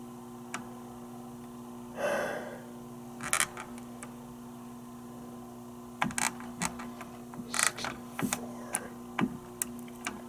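Scattered clicks, knocks and brief rustles of hands working at a fire alarm control panel, over a steady low electrical hum. The clicks cluster in the second half.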